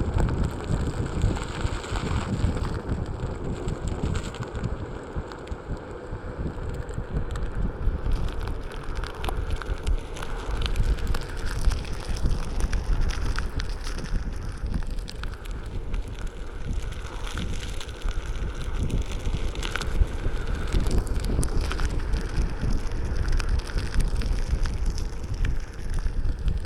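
Wind buffeting the microphone of a moving Onewheel rider, a heavy gusting rumble, with a steady crackle from the board's tyre rolling over a rough trail.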